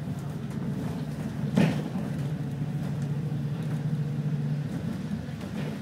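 Bus engine running steadily, heard from inside a double-decker bus, with a single knock about a second and a half in.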